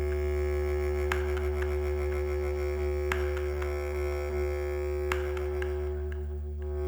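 Experimental live music: a held low drone with a steady higher tone sounding above it, and a short sharp click about every two seconds.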